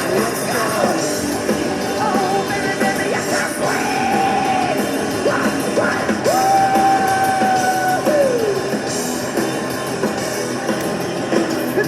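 Rock music with a singer holding long notes; one long note near the middle slides down at its end.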